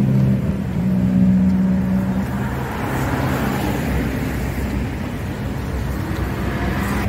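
Street traffic: cars driving past with a steady engine hum, and one car's tyre noise swelling and fading as it passes about three seconds in.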